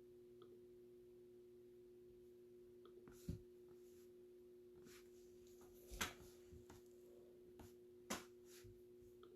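Near silence with a faint steady electrical hum, broken by three sharp clicks: one a few seconds in, one midway and one near the end, with a few fainter ticks between them.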